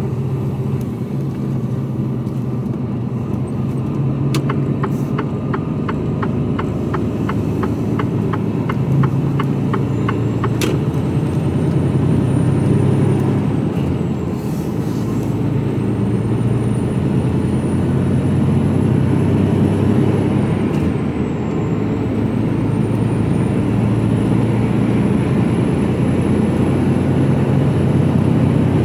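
Mercedes-Benz Actros lorry's diesel engine pulling away and accelerating, heard from inside the cab. A faint high whine climbs with the revs and falls away twice as the engine note dips. A rapid ticking of about four a second runs for roughly six seconds near the start and ends with a sharper click.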